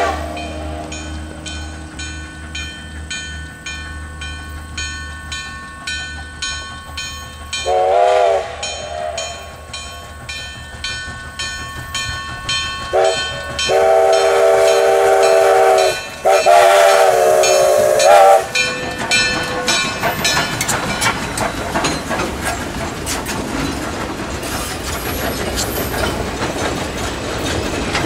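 Steam locomotive #1293, a 4-6-2, working slowly with a passenger train: steady exhaust chuffs about two to three a second, and a multi-note steam whistle. The whistle ends a blast at the very start, gives a short blast about eight seconds in, and two long blasts near the middle. In the last third the engine passes close, and the running gear and wheels clatter over the rail joints.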